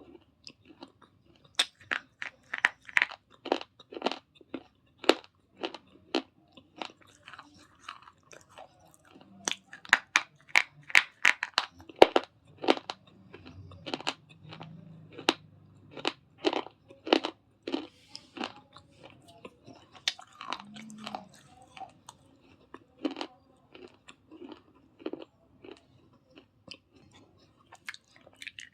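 Person biting and chewing hard, brittle pebble pot and slate pencil pieces close to the microphone: sharp, irregular crunches with quieter grinding chews between, thickest about ten to twelve seconds in.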